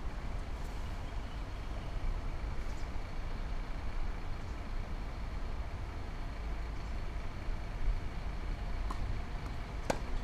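Steady low outdoor rumble with a faint high steady hum over it; just before the end, a single sharp crack of a tennis racket striking the ball.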